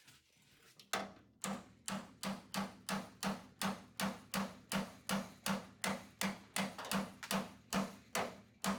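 Hammer blows on a steel door hinge, about three a second and evenly paced, each strike ringing briefly: hammering a tight-fitting hinge pin through the hinge.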